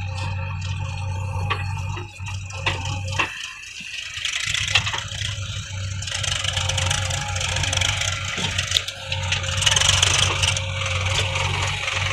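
Heavy diesel machine running steadily, with metal rattling and scraping over it; the low engine hum dips out briefly a little after three seconds and again near the end.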